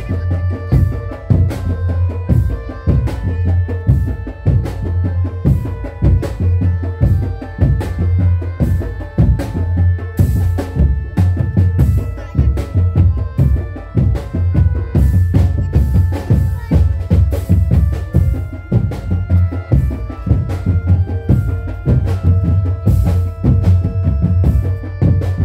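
Loud drum-driven music with a steady beat over deep bass, and a melody of held notes above it.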